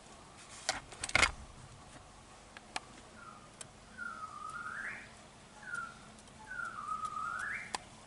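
A sharp knock and a few clicks about a second in. Then a whistled phrase comes twice: a short note followed by a longer one that dips and then rises.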